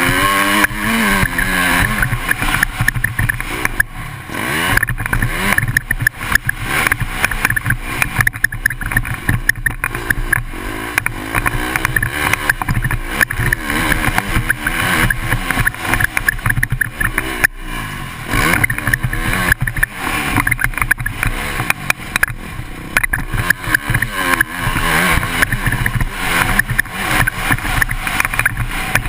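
KTM 250 four-stroke single-cylinder motocross bike engine under hard riding, the revs rising and falling again and again as the rider accelerates, shifts and backs off through the corners, with wind noise rushing over the onboard camera.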